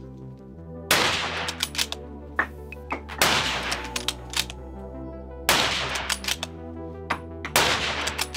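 Four rifle shots from a Sako 85 bolt-action rifle in .30-06, about two and a quarter seconds apart, each followed by a ringing tail. Between the shots come the lighter clacks of the bolt being worked by hand. Background music plays underneath.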